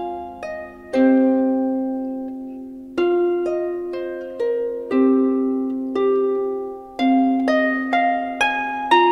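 Background instrumental music of plucked, harp-like notes, each struck and left to ring out and fade, with a new chord about every two seconds and lighter single notes between.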